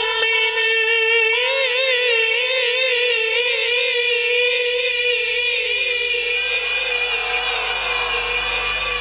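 Quran recitation (tilawat): a male reciter's voice holding one long, high, drawn-out note, wavering in melodic ornaments from about a second and a half in, then trailing off about six seconds in.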